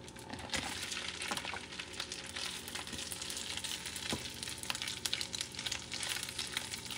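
Raw shrimp sizzling in melted butter in a cast iron pan, a steady crackling fry, while a wooden spatula stirs them around.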